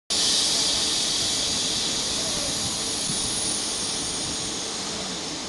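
Loud, steady hiss of compressed air escaping from a train's air system, starting suddenly and fading slowly, over a faint low rumble.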